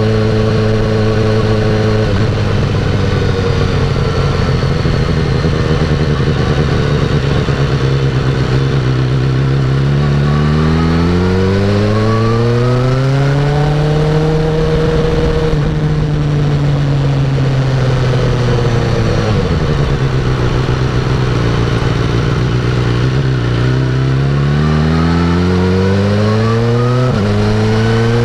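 BMW 1000 R motorcycle engine under way on the road: it pulls up through the revs for a few seconds, holds, eases back off as the bike slows, then accelerates again, with a quick upshift near the end before climbing once more.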